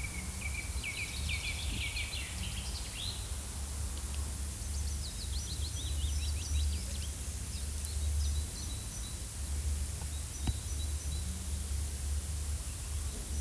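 Forest ambience recording: small birds chirping in quick runs of high notes, several times, over a steady low rumble and hiss.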